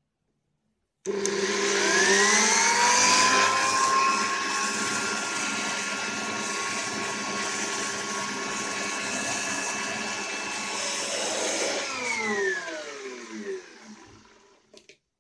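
Handheld electric air blower switched on about a second in, its motor whine rising as it spins up, then running steadily while it blows dust out of the computer cabinet. Near the end it is switched off and its whine falls away as it spins down to a stop.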